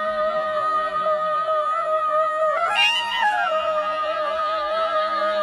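Background music: one long held, wavering note with its overtones, which swoops up and back down about halfway through.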